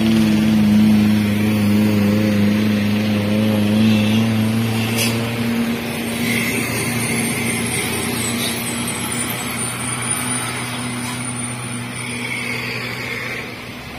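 Vehicle engines working up a steep hill road as traffic passes, a steady low drone that eases after about five seconds. A short hiss comes about five seconds in.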